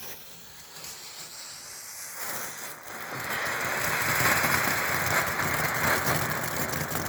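Small firework fountain burning: a steady rushing hiss of spraying sparks that builds up about two to three seconds in and then holds.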